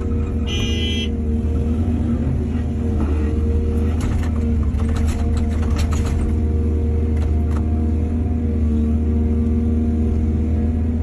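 Excavator's heavy diesel engine running steadily under load, with a brief high squeal about half a second in and a cluster of sharp metallic knocks and clanks in the middle.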